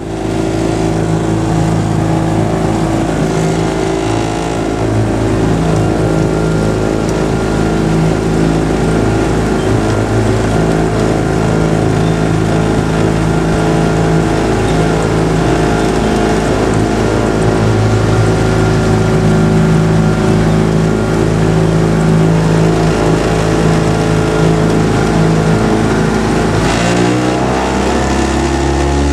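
Motorboat engine of a coaching launch running steadily at speed while pacing a rowing shell, with water noise; near the end its note falls as it is throttled back.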